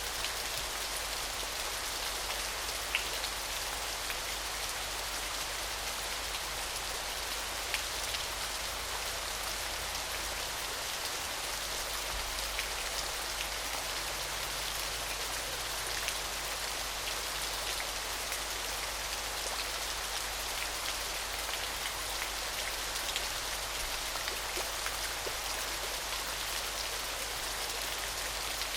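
Small waterfall: steady, even splashing hiss of falling water, with scattered drip-like pops that make it sound much like rain.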